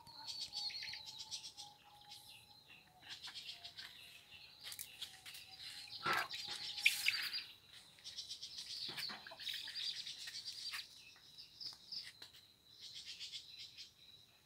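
Small birds chirping in rapid high trills over a steady high-pitched tone, with a louder brief call about six to seven seconds in.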